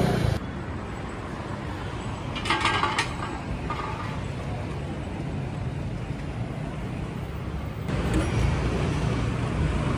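Street traffic noise, with a short, sharper sound about two and a half seconds in. A louder low hum takes over at about eight seconds.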